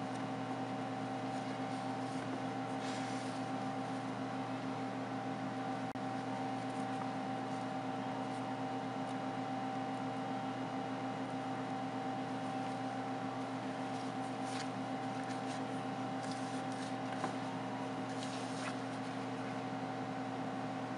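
Steady machine hum with several constant tones, like a running fan or appliance in a small room. A few faint rustles of a microfibre cloth wiping and handling a phone screen come and go over it.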